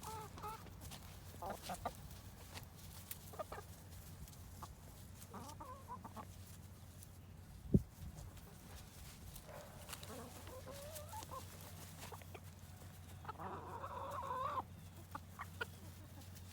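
Chickens clucking on and off as they come for bread, with a longer run of calls near the end. A single sharp knock about halfway through is the loudest moment.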